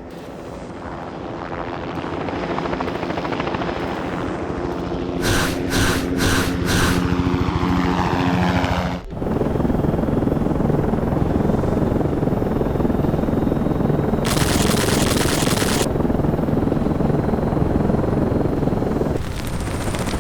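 Cartoon helicopter sound effect: a steady engine and rotor running that fades in at the start, then switches abruptly to a heavier, rougher run about nine seconds in. Four short sharp sounds come at about two a second near the middle of the first part, and a brief hiss of about a second and a half comes later on.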